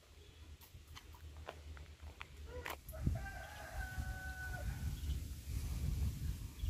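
A rooster crows once, starting about three seconds in: one call that ends on a long held note. Under it runs a steady low rumble, and a few sharp ticks come before the crow.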